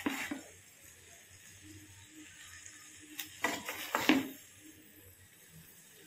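Noodles and vegetables sizzling in a hot pan while a wooden spatula stirs and tosses them, with louder spatula strokes at the start and twice around three and a half to four seconds in.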